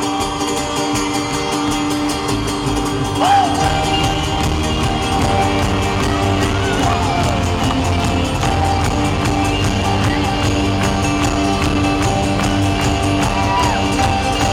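Folk-rock band playing live in an arena, an instrumental passage of held chords in which the bass end fills out about three seconds in. Audience whoops and shouts rise over the music.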